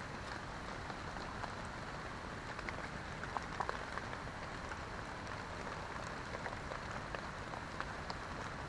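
Heavy rain falling steadily, with single drops ticking close by now and then.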